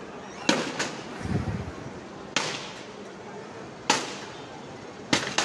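Wooden vegetable handcart being smashed with blows: about six sharp cracks at uneven intervals, two in quick succession near the end, with a duller low thud about a second in.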